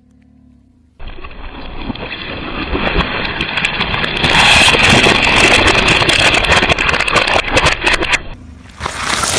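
A car running and rolling slowly, growing louder, with many sharp crackles and clicks as objects crunch under its tyres. A loud sudden crunch comes near the end.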